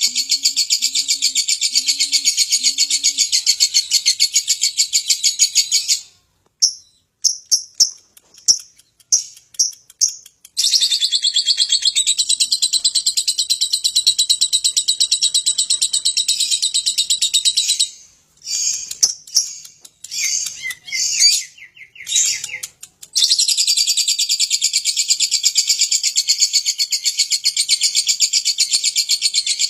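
Lovebird ngekek: long bouts of fast, continuous high-pitched chattering, twice broken for several seconds by shorter separate chirps.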